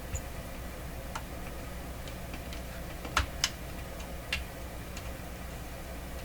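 A few scattered light clicks and taps, the two loudest close together a little past three seconds in, over a steady low hum.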